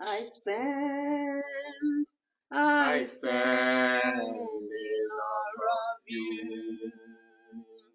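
A man and a woman singing a worship song unaccompanied, in long held notes with short breaks between phrases.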